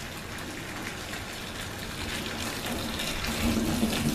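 Hot, just-boiled water pouring steadily into a bucket over soap flakes, the pour getting a little louder in the second half.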